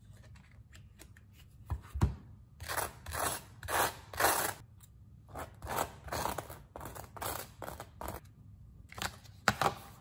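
Knife spreading butter on crisp toast: a run of short rasping scrapes, about two to three strokes a second. A couple of light knocks come just before the scraping and one more near the end.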